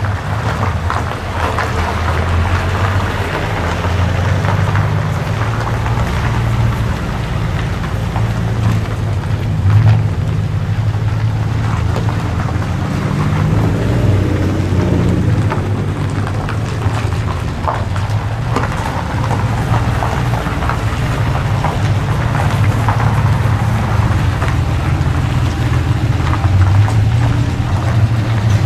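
Porsche 911 flat-six engines running at low revs as several cars roll slowly past one after another, a steady low rumble that swells and eases gently.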